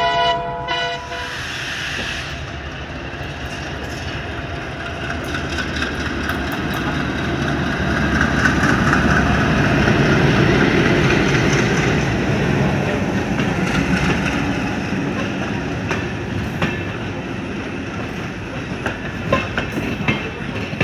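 A WDM3A diesel locomotive runs past, its engine rumble swelling to its loudest about halfway through. Then LHB coaches roll by, with wheels clicking sharply over rail joints near the end.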